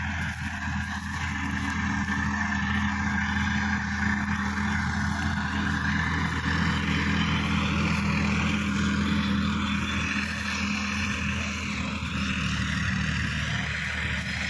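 Sonalika DI-50 RX tractor's diesel engine running steadily under load while pulling a rotary tiller through the soil. It grows louder as the tractor comes close, and eases slightly near the end as it moves away.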